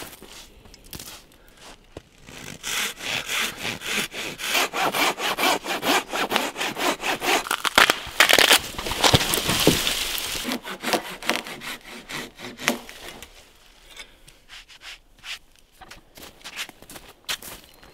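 Wood being cut with a hand saw, a fast run of rhythmic back-and-forth strokes lasting several seconds and stopping a little past halfway. After that come a few scattered knocks and clicks.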